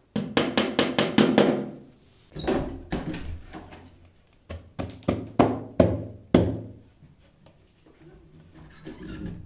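Hammering: a quick run of blows, then a second short run, then single blows about twice a second, each ringing briefly in a small room.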